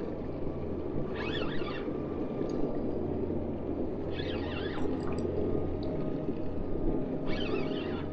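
Steady low hum of a Suzuki outboard motor idling under wind and water noise. Three short, wavering high cries come about three seconds apart.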